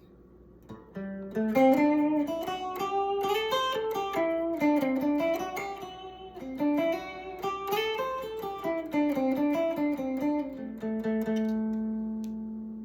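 Clean electric guitar playing a single-note lead melody, quick runs climbing and falling, then ending on one held note that rings and slowly fades. The guitar is slightly out of tune, as the player himself says.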